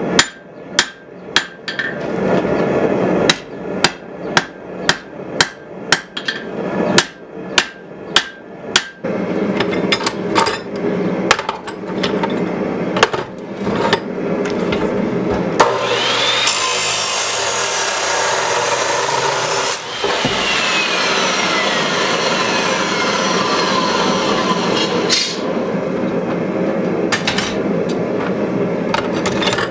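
Hand hammer blows on hot steel on an anvil, about two a second, then slower scattered strikes. About sixteen seconds in, an abrasive chop saw spins up and cuts through the steel bar for about four seconds, then its motor winds down with a slowly falling whine.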